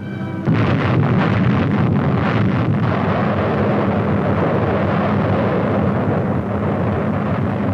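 Atomic bomb explosion: a sudden loud roar starting about half a second in, then rumbling on steadily.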